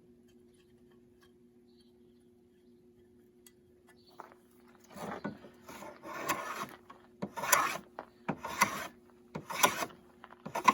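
Rough pallet wood being worked by hand with an abrasive: about five back-and-forth scraping strokes, roughly one a second, starting about halfway through.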